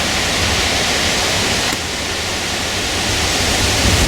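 Steady rushing wind on the microphone, a broad hiss over a fluttering low rumble of buffeting, from gusty weather ahead of a hurricane.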